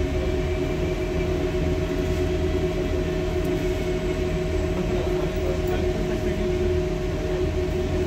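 Interior sound of a Mercedes-Benz O405N2 city bus driving: the engine and drivetrain running with a low rumble and a steady whine, at a constant pace.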